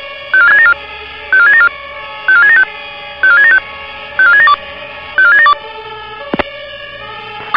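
Fire brigade radio alerting tones: six quick groups of short stepped beeps, each group a fast sequential-tone (five-tone) selective call, repeating about once a second over a low hum from the radio. The tones stop about five and a half seconds in, followed by a couple of sharp clicks.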